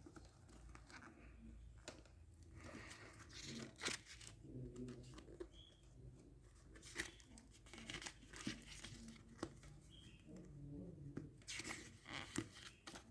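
Packaging being handled, crinkled and torn open by hand, faint, with scattered small clicks and taps throughout.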